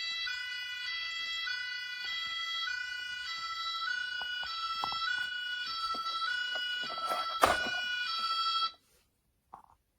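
Playmobil City Life 71202 toy ambulance's electronic siren sound effect: a two-tone siren alternating pitch about twice a second, which cuts off suddenly near the end. A sharp knock sounds about three-quarters of the way through, with a few light clicks before it.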